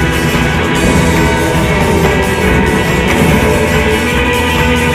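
Background rock music with distorted guitar and a steady beat.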